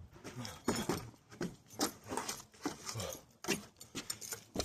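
A man's noisy kung fu practice: a quick run of sharp swishing and slapping sounds, about two a second, mixed with short grunts.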